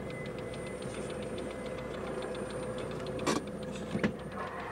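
A car engine running steadily, with faint regular ticking and two sharp clacks about three-quarters of a second apart, a little over three seconds in.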